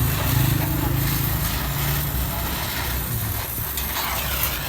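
An engine running with a low, steady hum that fades after about three seconds, and a sharp knock near the end.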